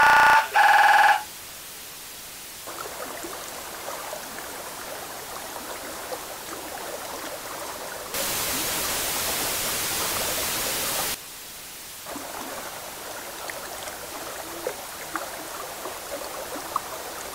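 A loud electronic tone with several pitches cuts off about a second in. Then comes a low crackling hiss with scattered small clicks, broken in the middle by about three seconds of loud, steady white-noise static that starts and stops abruptly.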